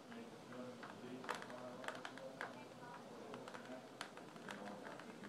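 Storm drops striking a hard surface close to the microphone: sharp, irregular taps, several a second, over the hiss of falling rain.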